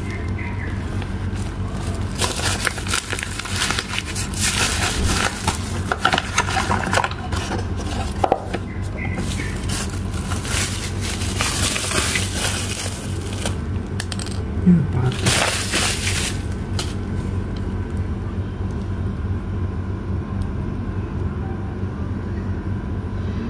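A plastic courier bag and its bubble-wrap lining being torn and crinkled open, in irregular bursts of crackling and rustling. It dies down after about seventeen seconds, leaving a low steady hum.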